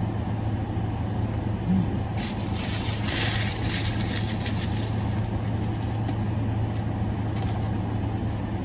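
Steady low hum of a car running while parked, heard inside the cabin. Paper rustles about two to four seconds in as a food wrapper is handled.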